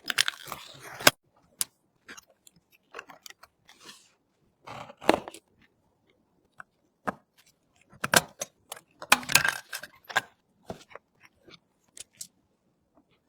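Hard parts being handled during a PC build: irregular clicks, clinks and light clatter, busiest at the start, around five seconds in, and again between eight and ten seconds in.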